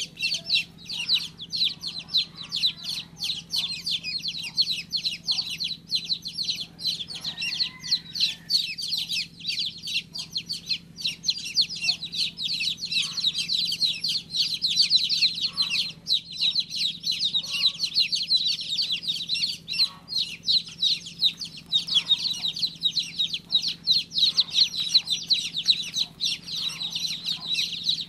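Many baby chicks peeping without a break, short high calls overlapping in a dense chorus, over a steady low hum.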